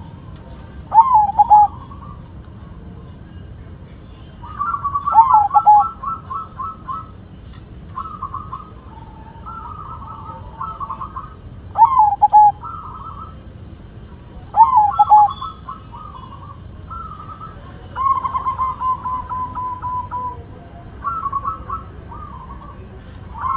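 White zebra dove (perkutut) cooing its song: short phrases of quick staccato notes, some ending in a falling slur, repeated every few seconds, with one longer even run of notes about eighteen seconds in.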